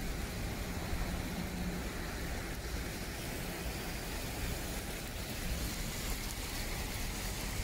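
Steady rain falling on a wet paved road, an even hiss of drops.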